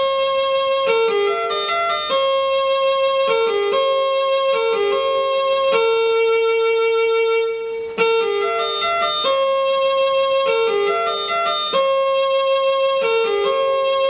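Background music: a slow keyboard melody of held notes, with no beat.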